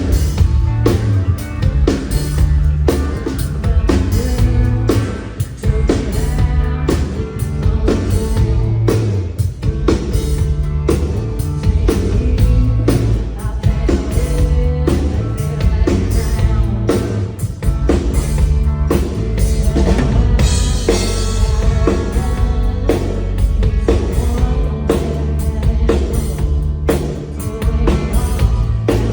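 Live full band playing a pop-country song, with a steady drum-kit beat over heavy bass.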